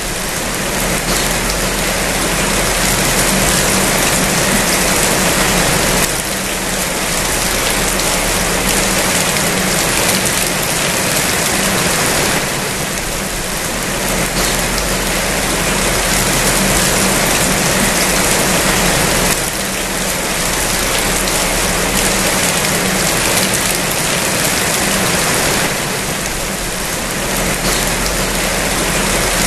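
Steady rain falling: a dense, even hiss that eases slightly every six seconds or so. A faint low steady hum runs underneath.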